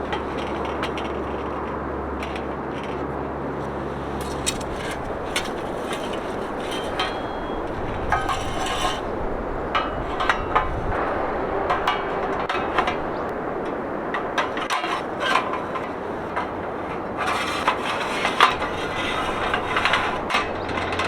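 Scattered knocks, clicks and scrapes of camping gear being handled, over a steady background hiss. The knocks come in clusters, busiest in the middle and again near the end.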